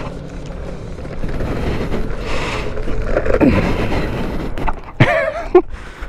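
Low rolling rumble and wind noise on a helmet-mounted camera microphone while riding a Bird electric rental scooter.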